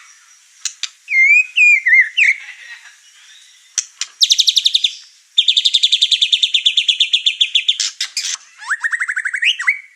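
White-rumped shama (murai batu) in excited full song, running through its repertoire: a few whistled glides, then fast trills of repeated notes, the longest lasting about two and a half seconds.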